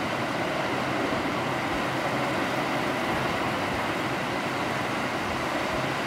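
Steady rush of surf as small waves wash up a flat sandy beach.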